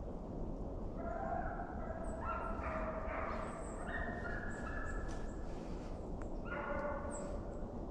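A pack of deer hounds baying in the distance, several dogs crying at once in drawn-out calls, the sound of hounds running a deer's trail. The cries come in a long run about a second in and again near the end.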